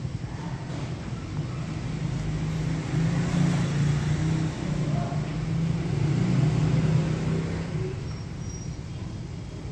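Steady low rumbling hum with a rushing noise over it, growing louder a second or two in and easing off near the end.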